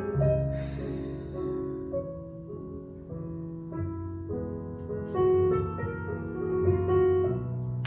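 Background piano music in a gentle jazz style for ballet class, held chords changing about once a second.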